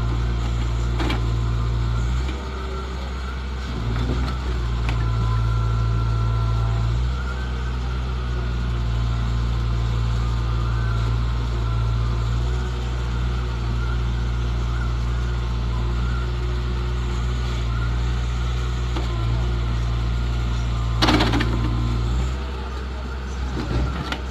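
Case 770EX Magnum backhoe loader's diesel engine running under load as the backhoe digs. Its note rises and falls several times with the hydraulic load. A few knocks come through, and one loud clank near the end.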